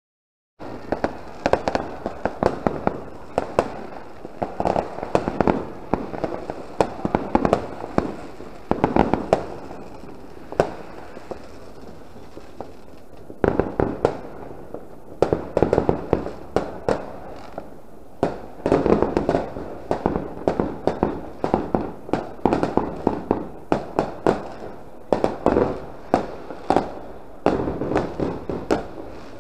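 Firecrackers going off in dense, rapid volleys of sharp cracks, swelling and easing in waves. The sound starts abruptly about half a second in.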